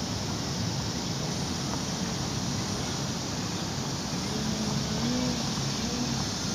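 Electric RC aerobatic plane in flight, its Motrolfly brushless outrunner motor and APC 13x6.5 propeller giving a steady rushing sound with a faint hum that wavers up and down in pitch in the second half. No creaking can be heard from the Castle Ice 50 speed controller, whose flight logging has been switched off.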